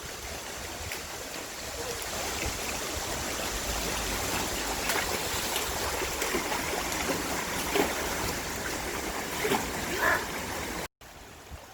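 Steady rush of flowing water in a mountain valley stream. It cuts off abruptly near the end, and a quieter hiss follows.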